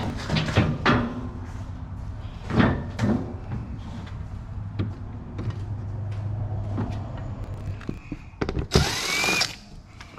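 Cordless drill/driver backing out the screws of a generator's cover panel: a steady low whir for several seconds, then a louder burst with a rising whine near the end, amid knocks and clicks of handling the panel.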